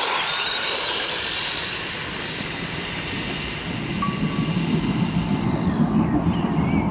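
Two electric RC cars, a brushless HSP Kidking Pro 1/16 truck and a brushed WLtoys A959 Vortex buggy, accelerating away together on wet asphalt. Their motors and gears whine over a hiss of tyres on the wet surface, and the sound fades as they pull away. A low rumbling noise takes over in the second half.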